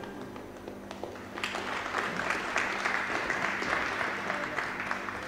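Scattered applause from a small audience, starting about a second and a half in and going on at an even level.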